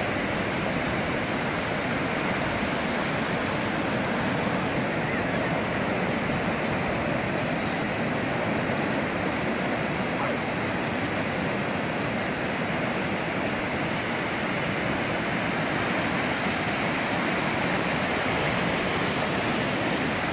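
Steady, unbroken roar of ocean surf, with no separate waves standing out.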